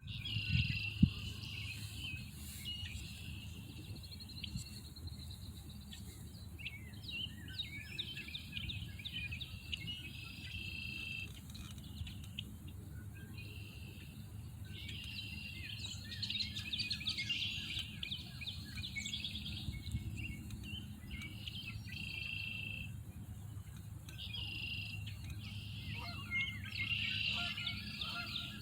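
Songbirds chirping and singing in repeated bursts of quick, high notes over a steady low hum, with one sharp tap about a second in.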